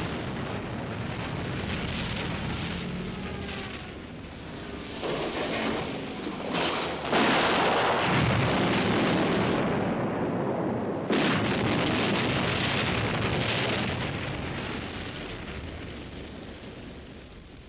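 A helicopter exploding and burning, as film sound effects. A continuous blast and fire noise has fresh explosions about five seconds in, about seven seconds in (the loudest) and about eleven seconds in, then dies away.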